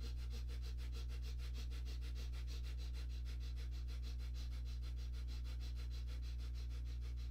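A man doing breath of fire, rapid forceful breathing in and out through the nose, about six even breaths a second and keeping the same pace throughout. A steady low hum lies underneath.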